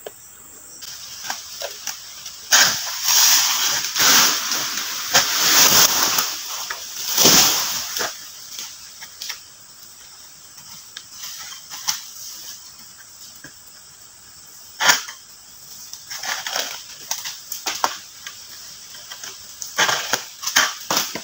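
Oil palm fronds rustling and swishing as a tall palm is worked with a long-pole harvesting sickle (egrek), with sharp knocks now and then. The rustling is busiest in the first several seconds.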